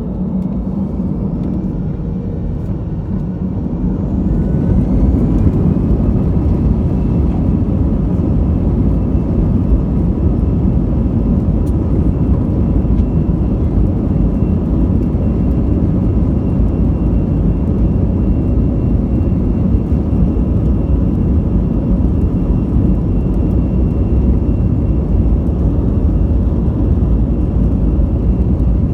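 Aeroplane engines powering up for takeoff: a whine rises over the first few seconds while the rumble grows louder about four seconds in. Then comes a steady loud roar with a thin whine on top, held through the takeoff run.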